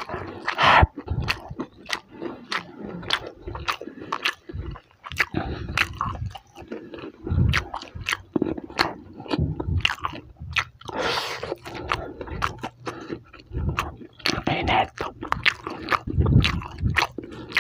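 Close-up chewing and biting into crispy fried chicken: many sharp, irregular crunches of the fried breading between wetter chewing.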